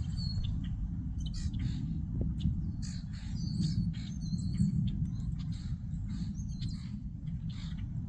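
Several birds chirping and calling over and over, short high calls with no steady rhythm, over a steady low rumble.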